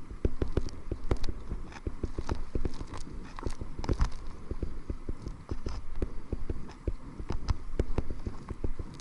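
Choppy water slapping against a kayak's hull in quick, irregular knocks, with wind buffeting the microphone.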